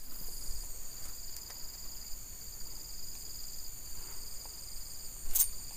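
Insects droning in several steady high-pitched tones, with a brief sharp click about five seconds in.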